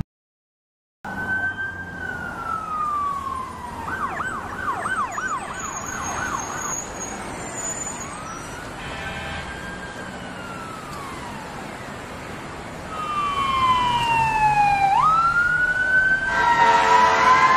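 Emergency vehicle siren: a falling wail, then a fast yelp, then a slow rise and fall, then another falling wail that jumps sharply back up. Near the end a louder, several-toned siren or horn blast joins in.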